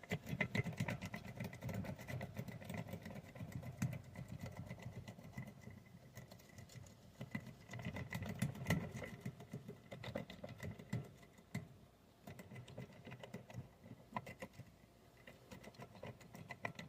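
Soft, irregular clicking and scraping of a Sparrows King rocking pick working the pin stack inside a padlock's SC1 keyway, rocked up and down and pulled in and out while a tension wrench holds the bottom of the keyway.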